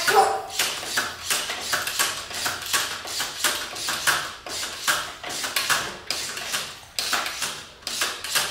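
Irregular plastic clicking and tapping, a few clicks a second, from the Fantastic Gymnastics toy as its gymnast figure swings around the bar.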